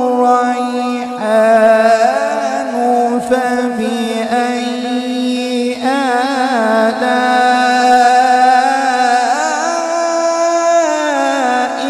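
A male qari reciting the Quran in the melodic tilawat style, holding long drawn-out notes with wavering, ornamented turns.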